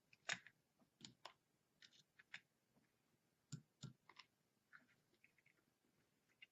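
Pliers nipping and snapping away the plastic housing of a melted circuit-board connector: scattered small, sharp clicks and crunches at irregular intervals, with near-quiet between them.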